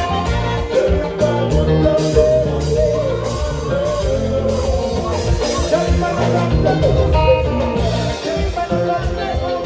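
A konpa band playing live through a PA: a male singer sings into a microphone over keyboard and a steady bass line.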